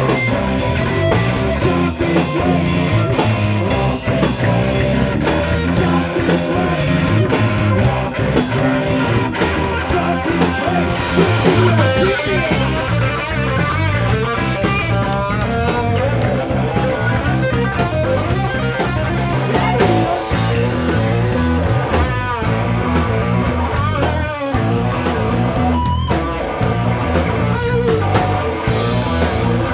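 Live rock band playing an instrumental passage on electric guitar, bass guitar and drum kit with a steady beat. From about twelve seconds in, a lead guitar line with bent, wavering notes rises over the band.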